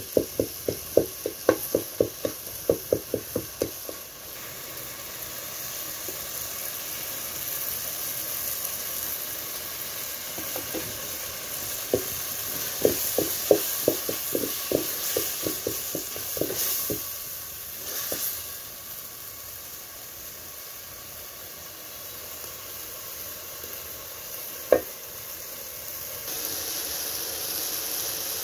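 Wooden spoon stirring chopped tomatoes, onions and peppers frying in a metal pot, over a steady sizzle. The spoon knocks against the pot about three times a second in two runs of stirring, one at the start and one midway, with a single knock near the end.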